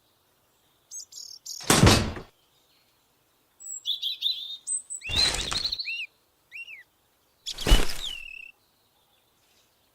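Short bird chirps and tweets mixed with three brief bursts of noise, each about half a second to a second long. The pieces are separated by dead silence.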